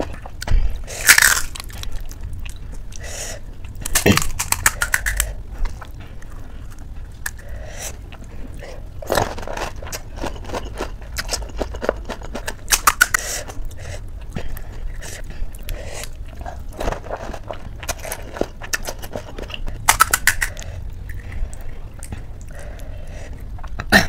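Close-miked eating of panipuri: crisp puri shells crunching as they are bitten, with chewing between the bites. The crunches come in bursts of crackling, about a second in, around four seconds in, around nine to thirteen seconds, and again about twenty seconds in.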